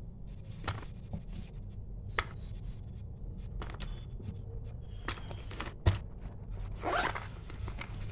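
Light clicks and knocks of rolls of washi tape being set down in a fabric pencil pouch against plastic pens and markers, with one sharper knock a little before the end, then a short rustling scrape as the pouch is folded shut.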